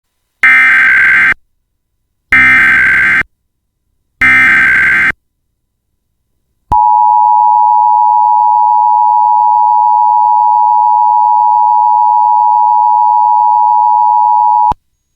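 Emergency Alert System header: three short bursts of SAME digital data tones, each about a second long and a second apart, then the EAS two-tone attention signal held steady for about eight seconds and cutting off sharply. Together they open an AMBER Alert broadcast.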